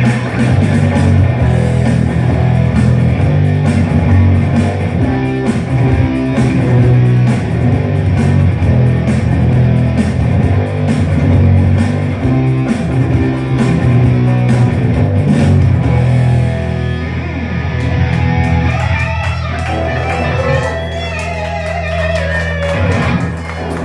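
Instrumental ending of a rock song: guitars and bass playing over a steady beat, with a melody line bending in pitch near the end.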